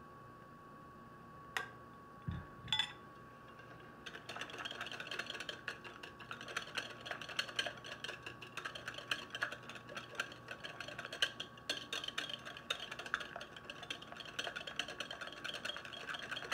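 Wire whisk beating garlic mayonnaise in a glass bowl to emulsify it. The tines click rapidly against the glass, and the clicking sets in about four seconds in after a few separate knocks.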